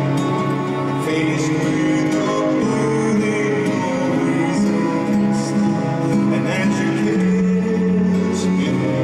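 Slow ballad played live by a band, led by guitar, with a man's singing voice.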